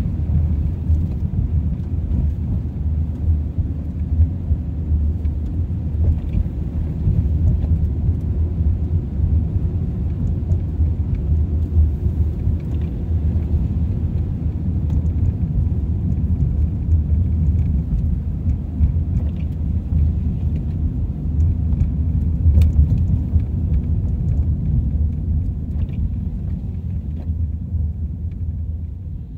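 Steady low rumble of a car driving, with road and tyre noise heard from inside the cabin, easing off slightly near the end.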